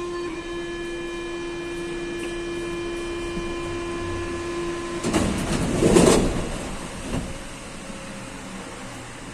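Door-closing warning on an MP-82 metro train: a steady warning tone sounds for about five seconds and stops, then the sliding doors close with a loud thud about six seconds in, followed by a lighter knock.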